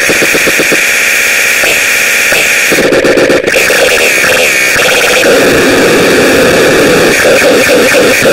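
Loud, harsh, distorted noise that runs on without a break in character, a dense hiss and buzz with pulsing texture, briefly dipping a little over three seconds in.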